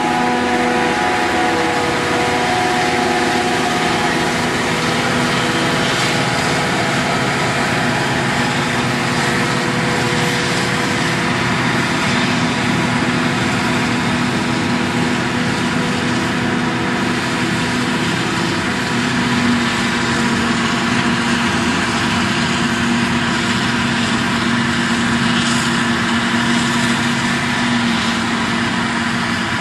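Claas Jaguar self-propelled forage harvester running steadily under load as it chops standing maize for silage, with a tractor pulling the silage trailer alongside. A steady mechanical drone runs under a dense rushing noise.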